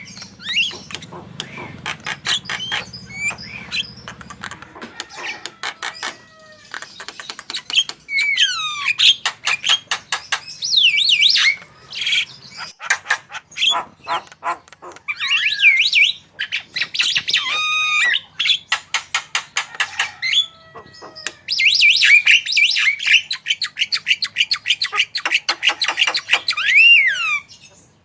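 Javan myna singing a loud, varied song. It runs fast rattling clicks and harsh squawks together with whistled notes that slide up and down in pitch, a mimicry-filled repertoire learned from other birds.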